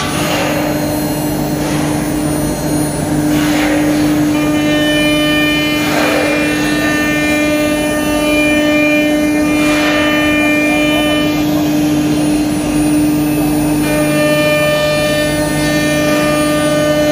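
A CNC router's 9 kW air-cooled HQD ATC spindle running with a steady whine as it mills grooves into an MDF board. A set of higher tones joins in about four seconds in, drops out around eleven seconds, and comes back near fourteen seconds.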